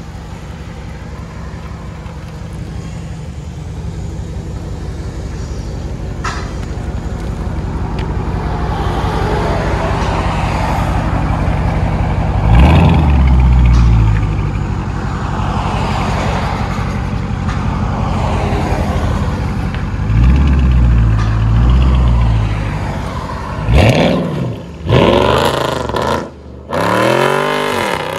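2019 Dodge Charger Scat Pack's 6.4-litre (392) HEMI V8 with its mid mufflers deleted, idling with a deep, steady exhaust note that grows louder, blipped twice, about twelve and twenty seconds in. Near the end it accelerates away hard, its pitch climbing in several pulls with a short break between them.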